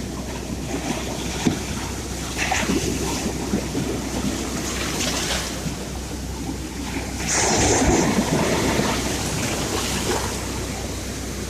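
Sea surf: waves washing in, with one louder wave surging about eight seconds in.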